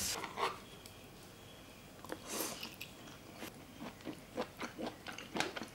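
Close-up sound of a person biting into and chewing tender grilled beef tongue: a run of short, soft, wet mouth clicks, several a second, begins a little past halfway, after a brief soft rustle about two seconds in.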